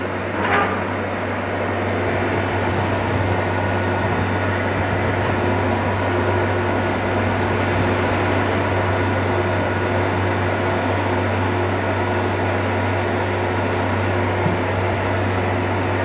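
Milk chiller's refrigeration unit running steadily while it is charged with refrigerant gas: an even mechanical hum with a strong low drone and a few steady higher tones.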